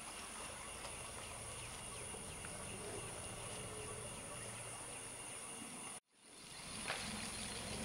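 Steady high-pitched chorus of forest insects, with a faint low hum underneath. The sound cuts out abruptly about six seconds in and fades back up.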